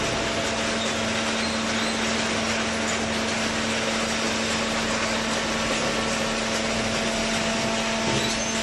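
Single-cylinder vertical hydraulic baler running: a steady mechanical drone with a steady hum that stops near the end.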